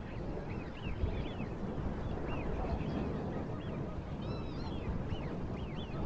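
A flock of birds calling: many short, arched calls overlapping several times a second, over a steady low rumble.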